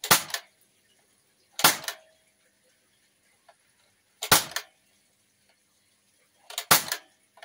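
A custom-built L85A2-style 4.5 mm CO2 BB rifle firing four single shots, a second or two apart at irregular intervals. Each shot is a sharp pop followed a fraction of a second later by a fainter knock.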